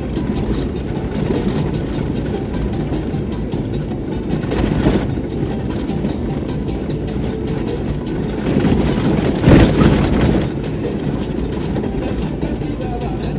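A vehicle driving on a rough dirt road: a steady low rumble of engine and tyres, swelling louder briefly about four and a half seconds in and more strongly around nine to ten seconds in.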